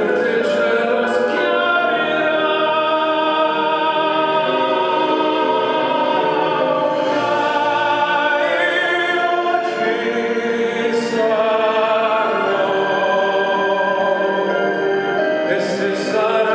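Figure skating short-program music: operatic singing with orchestral accompaniment, playing continuously.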